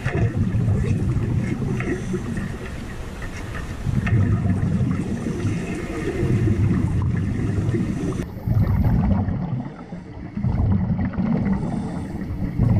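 Underwater rumble of air bubbles from a diver's helmet exhaust, surging in bursts about every two seconds with the diver's breathing.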